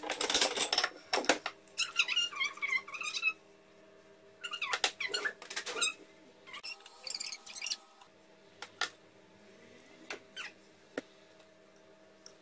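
Kitchen crockery handling: a wall cupboard opened and a ceramic plate taken out and set down, then clinks, knocks and high wavering scrapes of ceramic ramekins against the plate as chocolate fondants are turned out. A few sharp clicks come near the end, over a faint steady hum.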